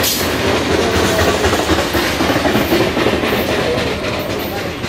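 Wheels of a Norfolk Southern mixed manifest freight train clattering on the rails as the last cars roll away, the clickety-clack slowly fading toward the end.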